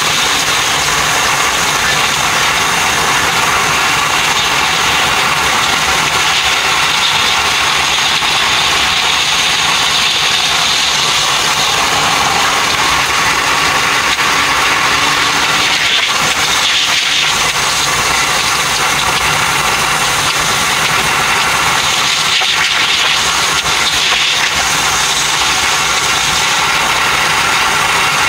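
Electric train running at high speed, heard from the driver's cab: a steady rushing noise with no breaks.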